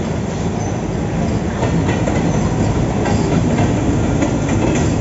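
Passenger train pulling into the station behind a WDM-3A diesel-electric locomotive: the locomotive's engine passes, then the coaches roll by with wheels clicking over rail joints, the sound growing a little louder.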